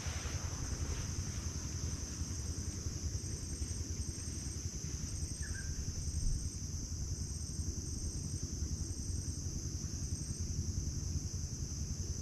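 Insects buzzing steadily at a high pitch, with a short chirp repeating above it about twice a second, over a steady low rumble.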